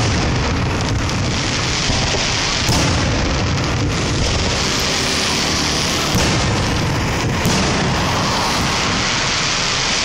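Aerial firework shells bursting in a display: about five booms a second or so apart, over a continuous dense crackle and hiss.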